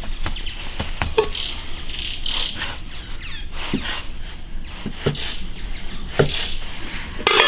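Small birds chirping on and off, while a cleaver cuts a log of dough on a floured wooden chopping block, each cut ending in a dull knock on the wood. A louder scraping sound comes right at the end.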